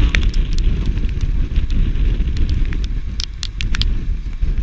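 Wind rumbling on the camera microphone from a slowly driving vehicle, easing a little after about three seconds, with irregular sharp ticks of raindrops hitting the camera.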